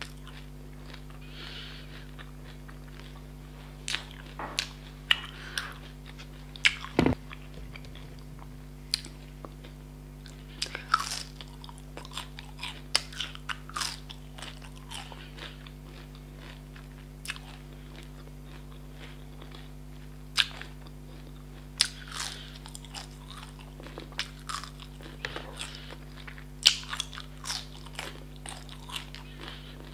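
Crispy, syrupy jalebi being bitten and chewed close to the microphone: irregular sharp crunches with softer chewing between them, over a faint steady hum.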